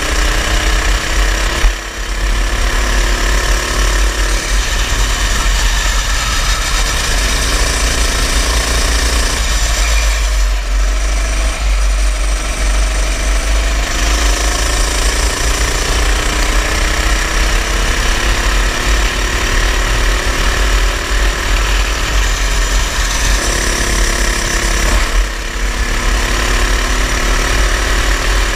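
Go-kart engine running hard, its pitch climbing as it revs up and dropping back as the throttle eases, several times over, over a heavy low rumble.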